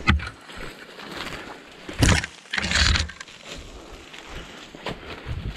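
Branches, twigs and dry leaves brushing and crackling as someone pushes through dense undergrowth, in several sudden bursts, the loudest about two to three seconds in.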